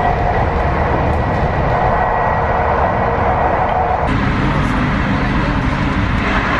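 Passenger train running, heard from inside the carriage: a steady rumble of the moving train, its tone shifting about four seconds in.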